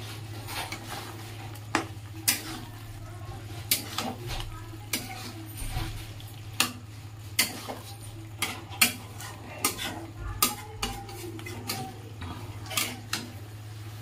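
A metal spatula stirring and scraping thick curry in a kadhai, with irregular clinks and scrapes against the pan, roughly one or two a second. A steady low hum runs underneath.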